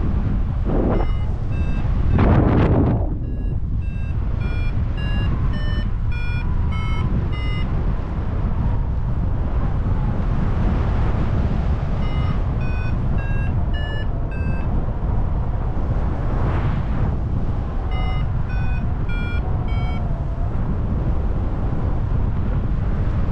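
Paraglider variometer beeping in three runs of short tones, about two a second, with the pitch stepping up and down, signalling that the glider is climbing in rising air. Underneath is steady wind noise on the microphone from the flight, with a louder gust about two seconds in.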